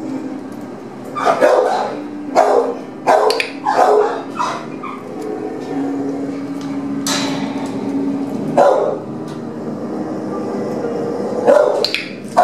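Shelter dogs barking: a quick run of short barks in the first few seconds, then single barks at gaps of a few seconds, over a steady low hum.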